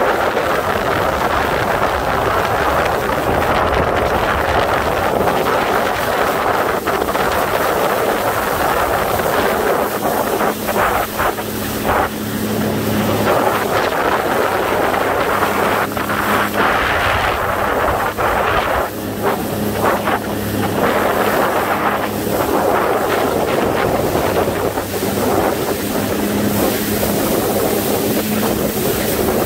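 Jet ski engine running steadily at cruising speed, with water rushing and splashing past the hull and wind buffeting the microphone in gusts.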